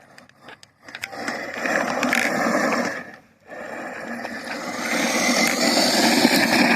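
K'nex RC monster truck's 21-turn 550 electric motor and gear train running under throttle on a 3S LiPo. It comes in two runs: one starting about a second in and cutting out near three seconds, then a longer one that builds toward the end.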